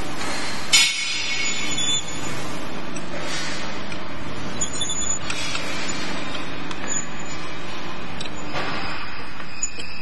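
SD-025 electric cable stripping machine running steadily, with a sharp metallic clink about a second in and a few lighter knocks and clinks after it.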